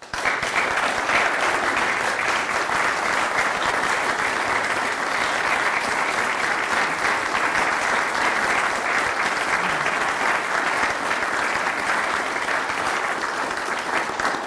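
Audience applause, starting all at once and holding steady.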